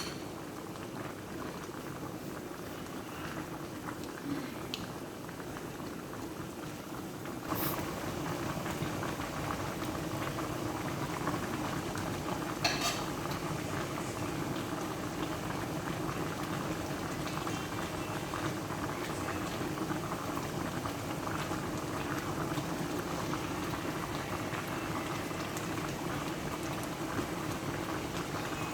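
Chicken adobo simmering and bubbling in a pan as its sauce reduces. There is a light click about a quarter of the way in, after which the bubbling is a little louder, and another click just before the middle.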